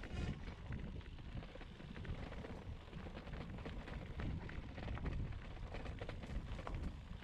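Gravel bike rolling over a rough dirt-and-stone track: tyres crunching on loose stones and the bike rattling in many small clicks, over a steady low rumble of wind on the microphone.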